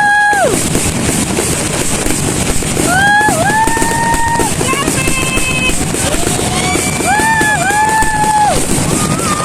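Music with a melody of long held notes, about one to one and a half seconds each, with a short dip in pitch inside some of them. Under it runs a steady, loud, noisy din with fireworks crackling.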